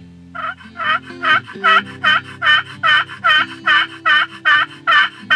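Friction pot turkey call worked with a striker, giving a long, even series of turkey yelps, about two and a half a second, over background music.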